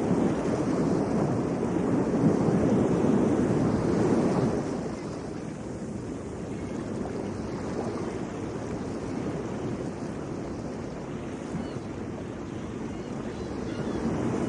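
Rushing noise of waves and wind, louder for the first four seconds or so, then easing and swelling again near the end.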